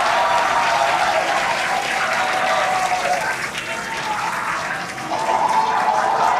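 Crowd cheering and applauding, a dense wash of clapping and voices. It eases off about three and a half seconds in and swells back up about five seconds in.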